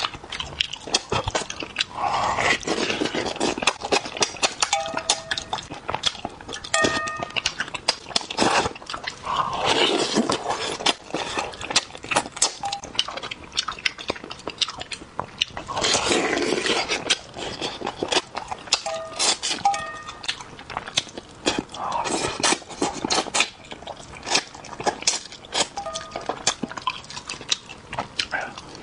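Close-miked wet chewing and lip smacking while eating spicy braised fish, with a few longer slurps several seconds apart. Now and then there are short ringing clinks of chopsticks against a metal bowl.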